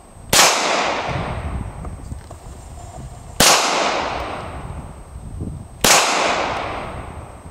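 Three single pistol shots from a Beretta semi-automatic pistol, about two and a half to three seconds apart. Each sharp crack is followed by an echo that fades over a second or two.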